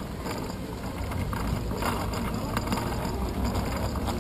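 Bicycle rolling slowly over hexagonal paving stones, heard through a handlebar-mounted camera: a steady low rumble with scattered small clicks and rattles.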